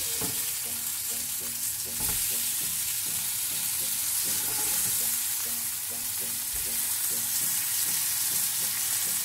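Marinated chicken wings sizzling on a dosa tawa over a low flame, frying in their own fat with no oil added: a steady hiss, with a light knock about two seconds in.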